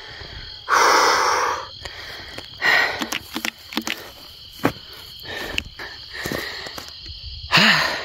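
A man breathing hard, with heavy exhales about a second in, again near three seconds and once more near the end: he is out of breath after hauling a heavy deer uphill. Insects trill steadily behind, with a few small knocks of handling.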